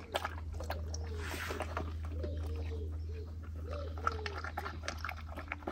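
A dog lapping at the trough of a handheld travel water bottle: soft scattered licking clicks, over a steady low hum. A series of faint short rising-and-falling calls sounds through the middle of it.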